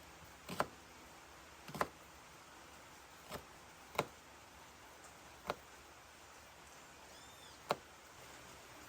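Six sharp knocks at uneven intervals over a steady faint hiss, with a brief faint high chirp just before the last knock.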